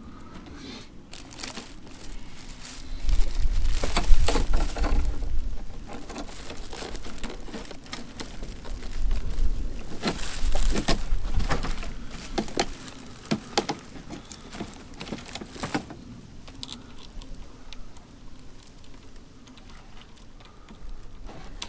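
Hands handling lawn mower parts and their packaging: plastic crinkling and rustling with scattered clicks and knocks. It gets louder in two stretches, about three seconds in and again about ten seconds in.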